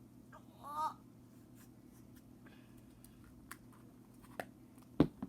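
Sticky clear slime being handled: small scattered clicks and crackles, with a sharp click about five seconds in. A short pitched sound comes under a second in.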